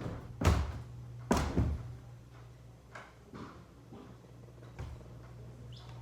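Two loud thumps about a second apart, then a few fainter knocks and bumps, over a steady low hum.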